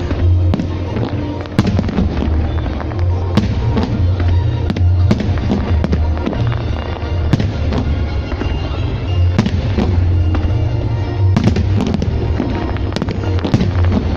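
A fireworks display, with shells bursting in many quick sharp bangs one after another, over music with a steady deep bass.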